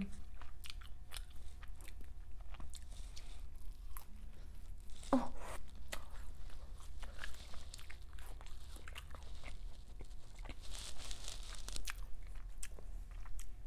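Close-miked chewing of syrupy French toast: many small wet mouth clicks and smacks as it is bitten and chewed, with a short hum of the voice about five seconds in.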